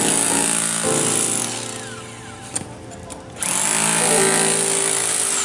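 Corded electric demolition hammer chiselling into a concrete floor, running in a steady rapid hammering. It eases off about two seconds in and starts up again loud about a second and a half later.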